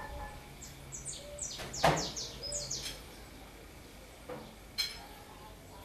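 Birds chirping: a quick run of short, high chirps that sweep downward, with one louder call about two seconds in and a single brief call near the five-second mark.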